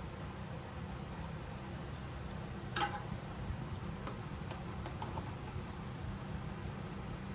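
Hand work on ATV parts: a few light ticks and taps over a steady low hum, with one sharp metallic clink that rings briefly about three seconds in.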